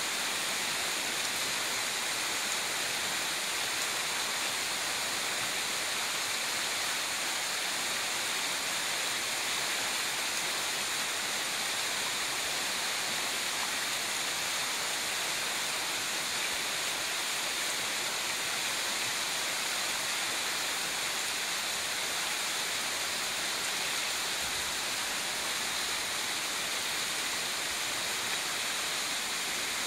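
Small rocky stream rushing over shallow riffles: a steady, even wash of running water.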